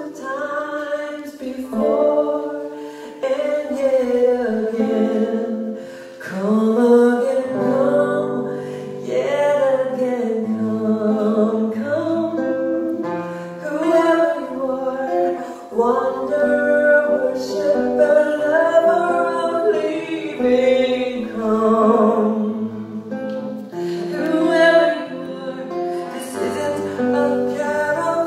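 A woman singing a song with held notes, accompanying herself on acoustic guitar.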